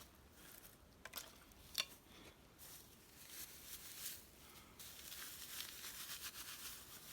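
Faint handling noise: a few sharp clicks in the first two seconds. After that comes a steady high hiss with quick, scratchy strokes.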